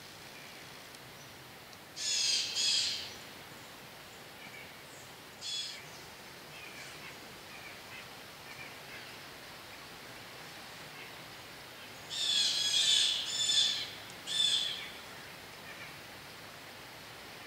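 A bird calling in short, harsh, repeated calls: two about two seconds in, a single one a few seconds later, then a quick run of three about twelve seconds in and one more just after, over a faint steady woodland hiss.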